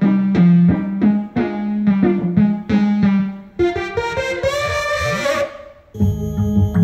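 Yamaha MODX6 synthesizer playing preset sounds: a run of short struck notes over a repeated low note, then a sound with pitches sliding up and down that fades away, and about six seconds in a new held sound begins.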